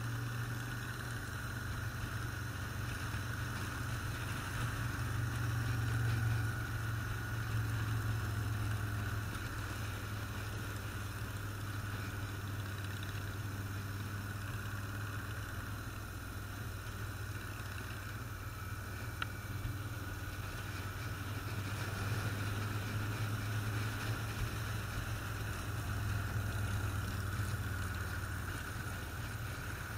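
Motorcycle engine running steadily at cruising speed with wind and road noise, a low drone that rises a little about six seconds in and again near the end.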